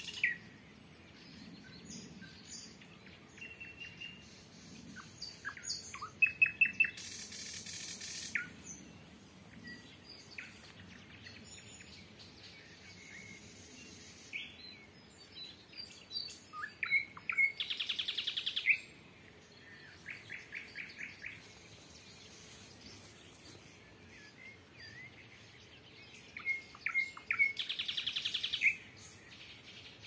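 Nightingales singing and answering one another. Three loud phrases of rapidly repeated notes and rattles come about ten seconds apart, with fainter song in the pauses between.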